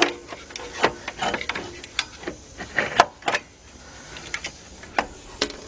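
Hand tools clicking and knocking against metal parts under a vehicle while working at a small bolt: a handful of sharp, irregularly spaced clicks, the loudest about three seconds in.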